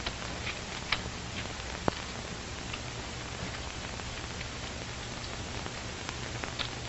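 Steady hiss and low hum of an old film soundtrack, with a few scattered crackles and clicks, the sharpest about two seconds in.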